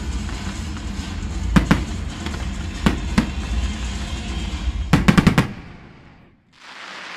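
Fireworks display: continuous crackling and rumbling with scattered sharp bangs, then a rapid volley of five or six bangs about five seconds in, after which the noise dies away. A short burst of clapping follows near the end.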